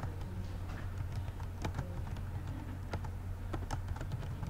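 Typing on a computer keyboard: irregular key clicks, a few a second, over a steady low hum.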